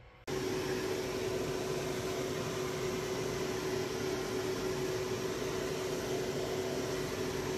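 A small electric motor running with a steady whirring hiss and one constant humming tone, starting abruptly right at the beginning.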